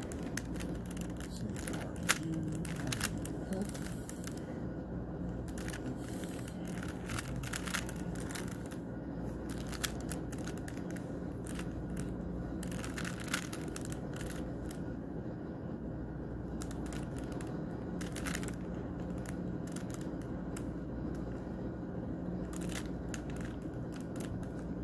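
Plastic Rubik's cube being twisted by hand: irregular clicks and clacks of its layers turning, over a steady low hum.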